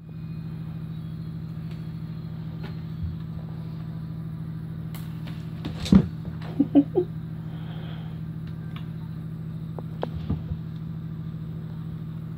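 Steady low hum from a motor or fan. Over it, a kitten pouncing on a feather toy hanging from a carpeted scratching post: a sharp knock about six seconds in, a few short scuffs and taps just after, and another light knock near ten seconds.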